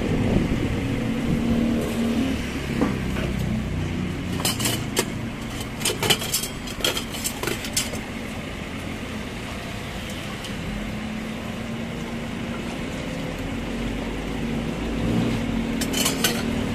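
Steady low hum of an idling or passing motor vehicle. Over it, a run of sharp clicks and clinks in the middle as a spoon scoops garnish from plastic containers into a soup bowl, and more clinks near the end.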